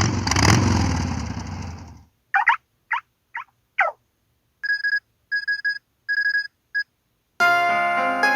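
A run of built-in sound effects from an LG LU1600 mobile phone: a noisy burst lasting about two seconds, then four short sweeping chirps, then four short electronic beeps. About seven seconds in, a piano-like melody starts.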